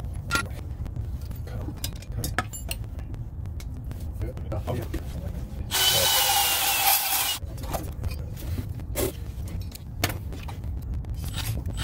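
Cordless drill running in one short burst of about a second and a half, about six seconds in, its motor whining. Scattered light knocks and clicks of tool handling and a steady low rumble around it.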